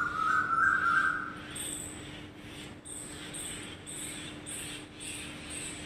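Birds calling: a warbling call that fades out in the first second and a half, then a high, thin chirp repeating about two to three times a second, over a steady low hum.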